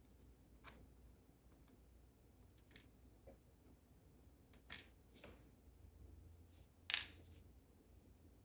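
Faint, sparse clicks and small metallic ticks from a pin-tumbler dimple lock and its small parts being handled, the sharpest about seven seconds in.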